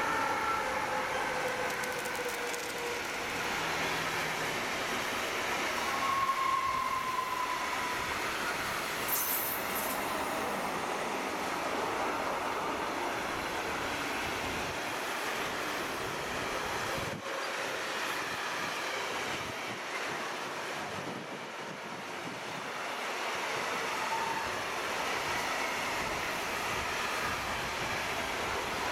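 Long freight train of lorry trailers on flat wagons passing close at speed: a steady rush and rumble of wagon wheels on the rails, with a few brief wheel squeals.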